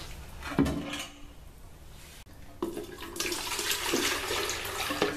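Porcelain toilet tank knocking as it is lifted off the bowl, then the water left in it pouring out into a metal paint can for about two seconds near the end.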